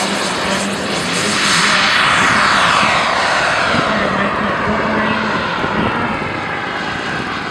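Radio-controlled model jet taking off and climbing away: a loud rushing jet roar whose pitch sweeps downward as it passes, loudest about two seconds in, then slowly fading as the jet gains height.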